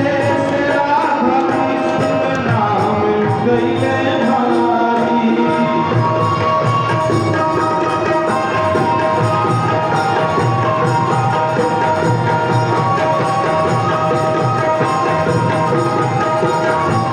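Instrumental passage of a Bhojpuri devotional song: a melody instrument playing held notes over a steady hand-drum rhythm with jingling percussion. There is some sliding melody in the first few seconds.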